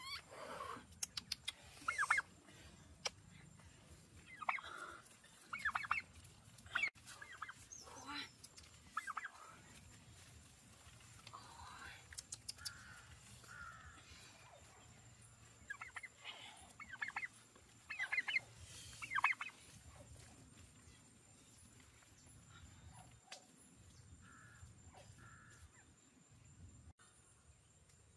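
A turkey calling in a series of short calls, bunched in groups with pauses between, along with a few sharp clicks.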